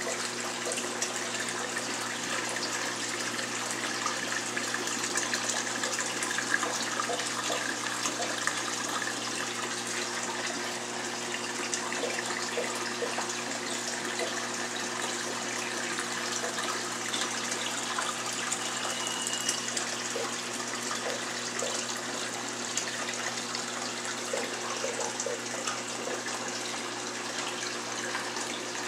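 Saltwater aquarium's circulating water: a steady rush of running water with a low, steady hum from its pump under it.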